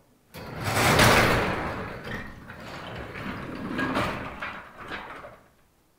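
Overhead sectional garage door being pushed up by hand, its panels rolling up the tracks with a rattling, clanking noise that is loudest about a second in and fades out after about five seconds.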